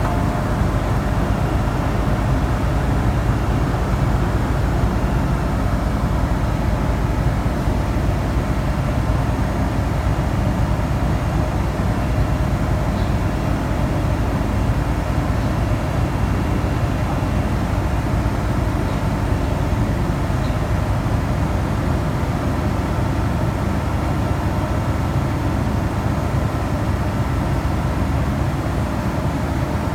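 Steady low rumble and hiss inside an MTR M-Train carriage standing at a station platform. No traction whine rises or falls, so the train is not moving.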